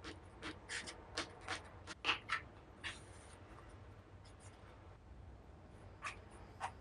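Drawing strokes on paper: a run of short scratchy strokes in the first three seconds, then a couple of single strokes near the end.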